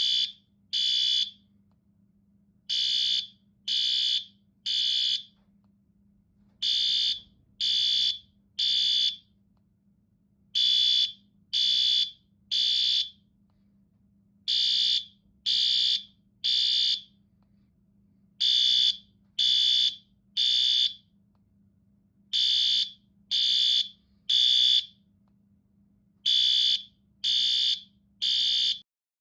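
Fire alarm sounding the temporal-three evacuation pattern: three short, high-pitched beeps about a second apart, then a pause, repeating about every four seconds. The alarm stops just before the end.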